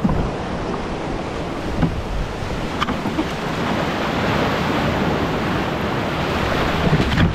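Ocean surf breaking and rushing, with wind buffeting the microphone; it grows louder in the second half.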